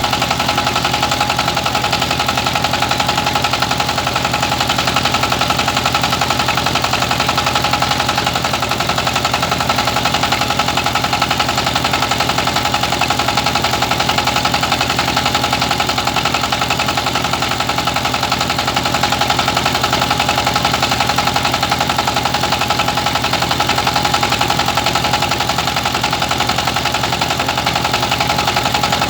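Rice milling machine running steadily: a fast, even pulse with a steady whine over it.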